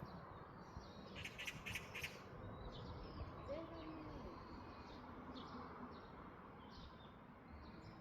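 Wild birds chirping: a quick run of high chirps about a second in, then scattered short calls, over a steady background hiss.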